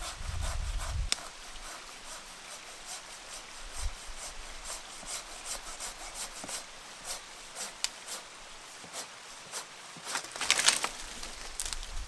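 Folding hand saw cutting through a fallen wooden branch: quick, even push-pull rasping strokes, about two to three a second, with a louder run of strokes near the end.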